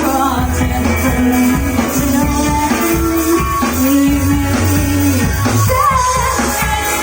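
Live rock band playing a song loudly: sustained bass and guitar chords over drums, with a wavering sung or bent note near the end.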